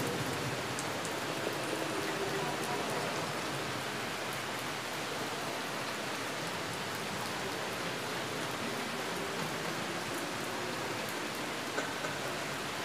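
A steady, even hiss of background noise, like rain falling, with one small tick near the end.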